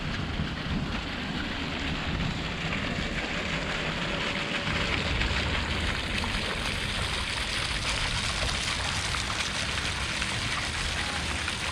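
Small fountain jets splashing into a shallow pool: a steady hiss of falling water that grows louder about five seconds in, over a low rumble.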